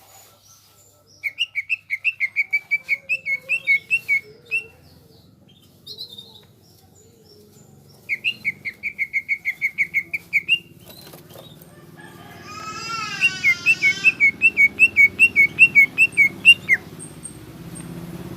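A green leafbird (cucak ijo) singing loudly in three bursts of rapid, repeated chattering notes, about six a second, each burst lasting two to four seconds. A wavering, warbled phrase overlaps the start of the last burst.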